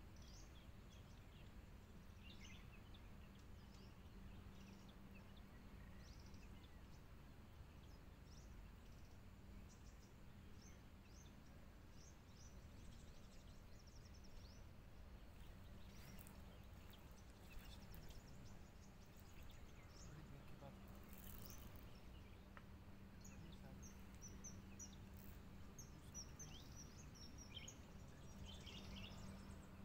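Faint outdoor ambience: scattered short high bird chirps over a steady low hum and rumble.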